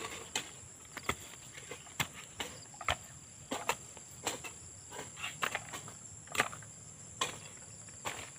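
Hand hoe chopping into soft soil, weeding and drawing earth up around young corn plants: short sharp strikes come irregularly, about one to two a second. A steady high-pitched insect drone runs underneath.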